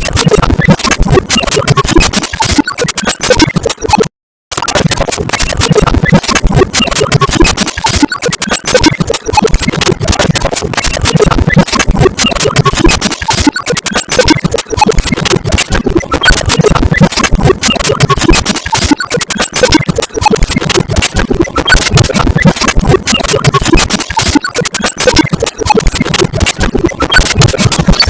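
Background music with a dense, crackly texture, cutting out completely for a moment about four seconds in.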